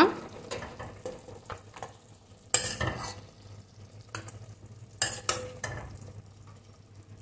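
A steel spoon scooping thick chicken gravy out of a metal pressure cooker pot, clinking and scraping against the pot several times, loudest about two and a half seconds and five seconds in. A steady low hum runs underneath.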